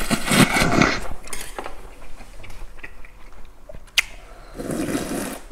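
A person loudly slurping cold buckwheat naengmyeon noodles for about the first second, then quieter mouth noises. A sharp click comes about four seconds in, and near the end there is slurping of icy broth drunk straight from the stainless steel bowl.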